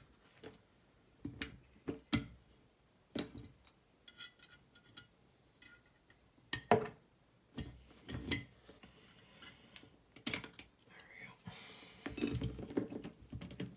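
Scattered metallic clicks and clinks of a Walsall Ace 7-lever safe lock being taken apart by hand, its parts handled and set down. A short noisy rasp near the end, like tape being pulled off.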